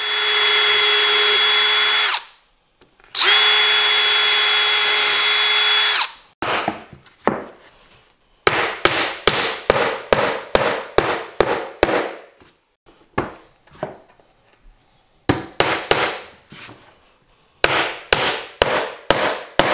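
Cordless drill running steadily twice, boring pilot holes in poplar floorboards. Then a hammer drives nails through the top of the boards in runs of quick blows, about two to three a second.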